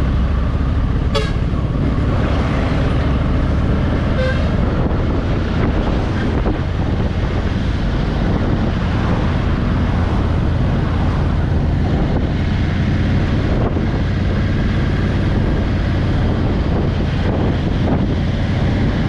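Honda Africa Twin 1100cc parallel-twin engine running steadily under way. A brief horn toot sounds about a second in.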